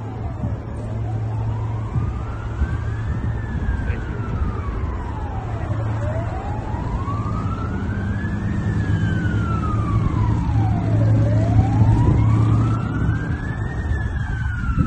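Emergency vehicle siren wailing, its pitch rising and falling slowly about every five seconds, three full sweeps, over a steady low rumble of traffic.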